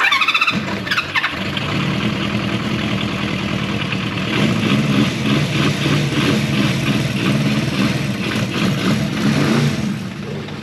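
Honda CB400F's bored-out air-cooled inline-four, breathing through K&N pod filters, starting up and running with the revs rising and falling. About ten seconds in it drops back to an idle that is too low.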